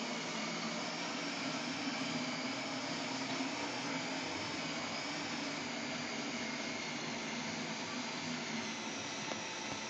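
Hirschmax Eurobots Cleanbot W28 window-cleaning robot running steadily on the glass: a constant motor and fan noise with a low hum and a faint high whine that wavers slightly as it moves.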